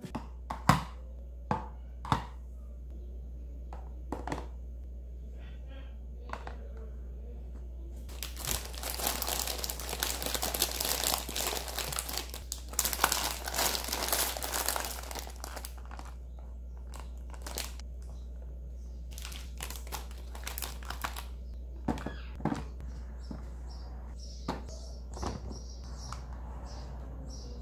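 Snack packaging crinkling as lunch boxes are packed, loudest for several seconds in the middle, with sharp clicks and taps of plastic containers being handled before and after.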